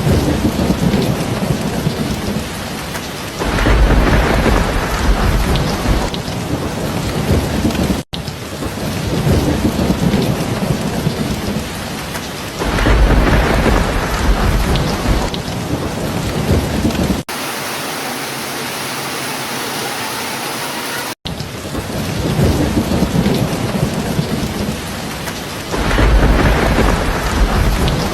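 Steady heavy rain with a rolling rumble of thunder three times, about ten seconds apart. The recording cuts off abruptly a few times, and for a few seconds in the middle it changes to an even rain hiss with no rumble.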